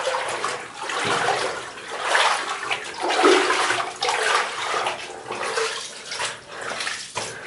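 Footsteps wading and splashing through shallow water on the floor of a flooded mine tunnel, a sloshing surge about once a second.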